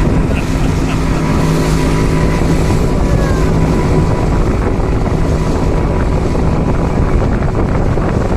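Boat motor running steadily at a constant pitch, with wind buffeting the microphone.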